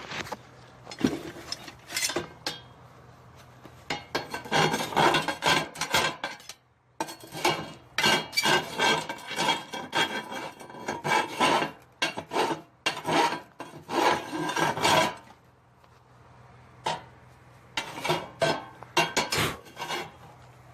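Rasping, scraping strokes of metal on welded steel in quick bursts, then a few scattered clicks and short scrapes near the end.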